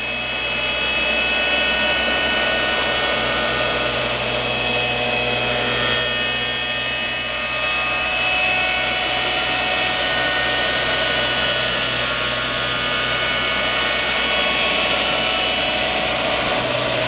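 Lih Woei LH-28-A automatic copy shaping machine cutting a wooden workpiece: its high-speed cutter spindle gives a steady high whine over a low motor hum.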